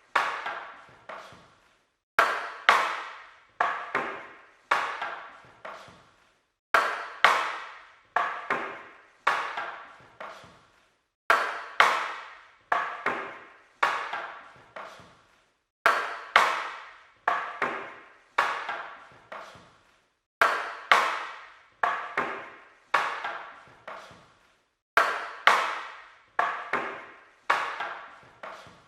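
Wooden weapons clacking against each other in quick exchanges of two to four strikes, each hit sharp with a short ring, with brief pauses between exchanges.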